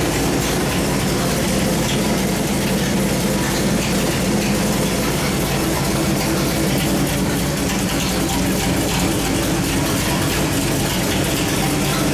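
383 cubic-inch small-block Chevy stroker V8 running on an engine dyno at a steady speed, loud and even, with no revving.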